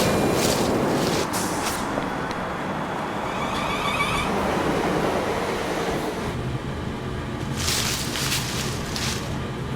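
Street traffic ambience: a steady rush of passing vehicles with a few sharp clicks. About six seconds in, the rushing eases and a low engine hum takes over, with a few brief louder swells of passing traffic.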